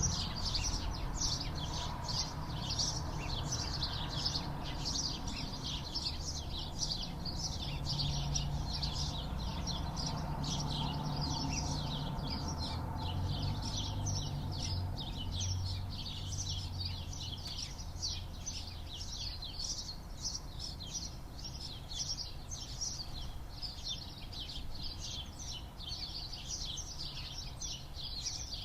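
Many small birds chirping together, a dense unbroken run of short, high chirps overlapping one another, over a steady low background rumble.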